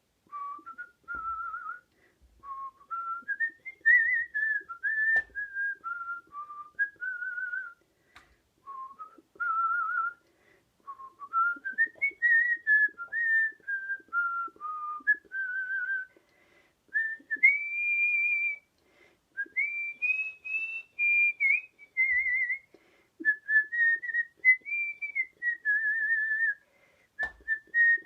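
A person whistling a melody: one clear, pure line of notes moving up and down in phrases, with short pauses between them and a wavering vibrato on some held notes.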